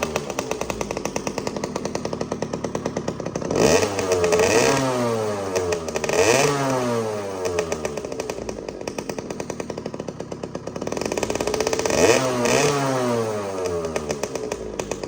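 50cc two-stroke motorcycle engine running through its newly repaired exhaust, revved up in short blips several times and dropping back to a fast, even idle between them.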